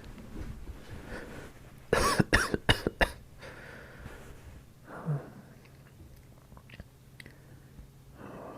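A man coughing, a quick fit of four or five coughs about two seconds in: the cough of a real cold with a tickling throat.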